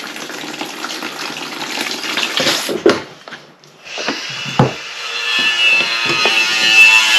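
Central-heating water pouring from an open pipe into a plastic bucket, cutting off for a moment about halfway through, with a couple of knocks as a fitting is worked onto the pipe. Background music comes in over the last two seconds.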